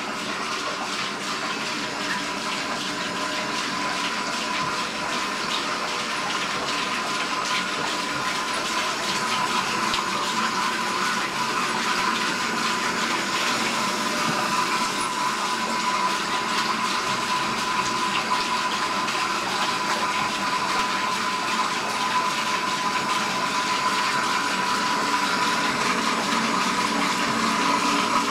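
Bathroom sink faucet running steadily into the basin, with a thin steady tone through the rush of water.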